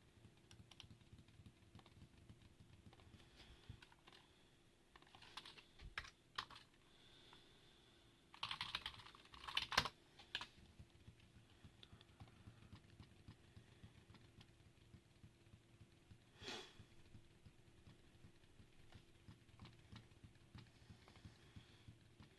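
Quiet typing on a mechanical keyboard: a steady patter of key clicks, with a few louder noisy flurries about a quarter and almost halfway in.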